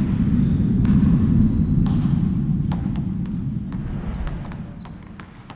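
Basketballs bouncing on a gym floor: scattered sharp thuds over a loud low rumble that swells in the first second and then fades away.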